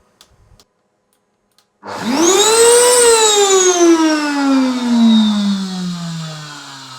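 Electrolux ErgoEasy vacuum cleaner motor switched on: after a few faint clicks it spins up with a rising whine about two seconds in, then its pitch falls steadily as it slows down. It is the high-pitched sound that the repairer takes for a warning that the motor is failing.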